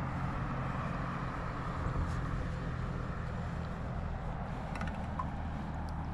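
A steady low engine-like hum under an even rushing noise.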